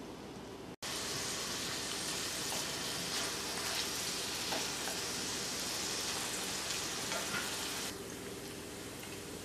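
Diced pancetta frying in olive oil in a stainless steel skillet: a steady sizzle with scattered small pops. It steps up louder about a second in and falls back to a softer hiss near the end.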